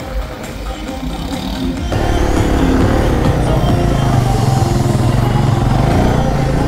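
Background music for about the first two seconds, then a sudden cut to a motorcycle engine heard close up from the bike itself, running steadily as the bike is ridden slowly through a gymkhana cone course.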